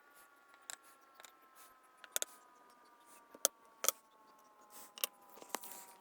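Small, sharp metallic clicks and taps from a pin-tumbler lock cylinder being worked with lock picks, about eight in all, some in quick pairs.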